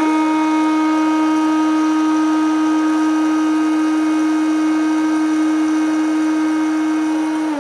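Electric hot-air snack maker running, its fan blowing hot air through the chamber of roasting chickpeas with a steady hum and rush of air. At the very end it shuts off on its own and the motor starts to wind down, the hum falling in pitch.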